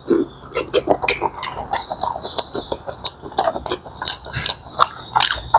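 Close-up sounds of a person chewing and eating seafood: an irregular run of short wet clicks and smacks, several a second.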